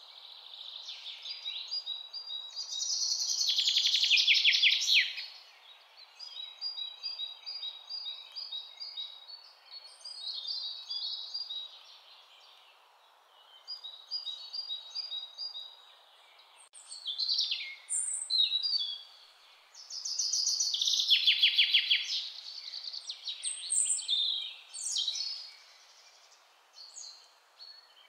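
A recording of birdsong: chirps and fast trills in phrases that come and go every few seconds, over a faint steady hiss.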